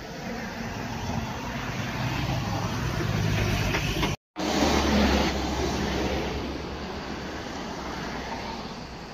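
A motor vehicle passing on the road, its engine and tyre noise swelling, peaking about halfway through, then fading away, with a brief total dropout in the sound just after the peak.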